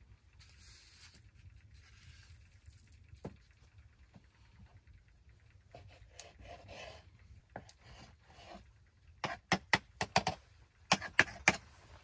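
Kitchen knife slicing raw meat on a wooden cutting board: soft cutting and scraping strokes, then a quick run of sharp knocks of the blade on the board in the last few seconds.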